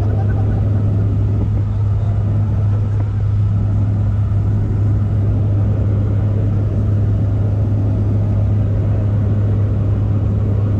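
Jump plane's engine and propeller noise heard inside the cabin in flight: a loud, steady low hum with a constant deep tone that does not change.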